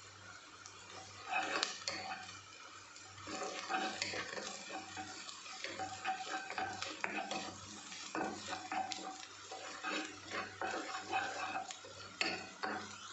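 Wooden spatula stirring and scraping diced onions around a stone-coated nonstick pot in irregular strokes, over a light sizzle of the onions sautéing in oil on their way to light golden brown.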